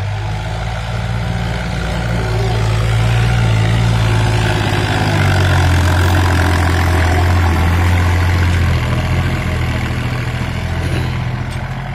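Preet 955 tractor's diesel engine running as it pulls a trailer over loose dirt. It grows louder as it passes close by, its note dipping lower in the middle and rising again as it moves off.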